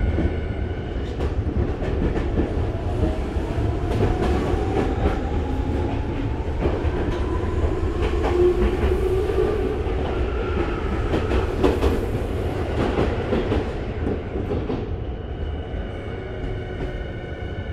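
Tokyu 5050 series commuter train heard from inside the car as it runs into a station. Low rumble with wheel clatter over rail joints, a gliding whine from the Hitachi IGBT-VVVF traction inverter and motors, and a quieter steady whine once the train has slowed to a stop about 15 seconds in.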